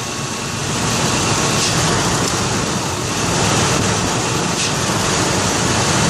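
2001 Ford Expedition's V8 engine under light throttle, sputtering as if it wants to cut off. Fuel pressure sags under throttle from about 23 psi, against a spec of 30 to 40, which the owner puts down to a failing fuel pump.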